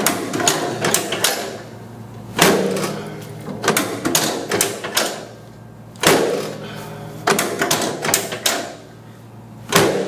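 Quick clusters of sharp clacks and knocks from chiropractic treatment on a treatment table, several within a second, repeating every couple of seconds with short gaps between.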